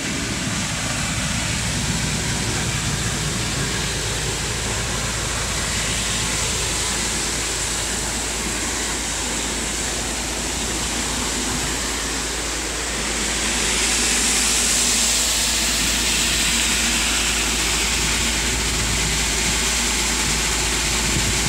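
Cutter suction dredger at work: a steady heavy engine drone under the rushing and splashing of water and dredged slurry. The rush grows louder a little past halfway.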